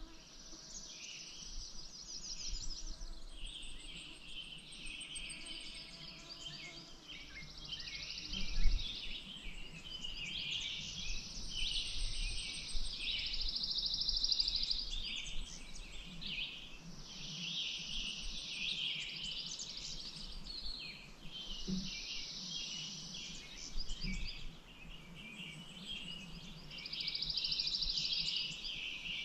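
Songbirds singing: a high, fast trill of about two seconds repeated every few seconds over continual chirping from other birds. A few low thumps come through about a third of the way in and near the end.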